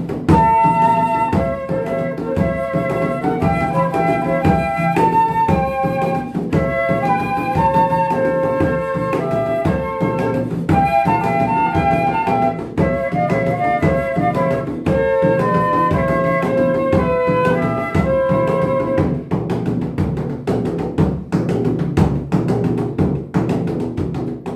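Closing music: a melody over drums and percussion. The melody drops out about three quarters of the way through, leaving the drum strikes alone until the music stops.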